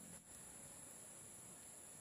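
Near silence with a faint, steady high-pitched drone of forest insects, which drops out for an instant about a quarter second in.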